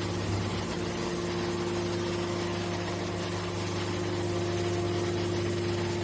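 Hydraulic scrap-metal baler's power unit running steadily, its pump giving a constant low hum with a steady tone above it, while the hydraulic cylinder swings the press's hinged lid open.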